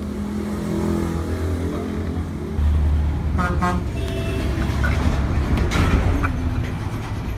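A motor vehicle's engine running with a low rumble that grows louder about two and a half seconds in, and a short horn toot about a second after that.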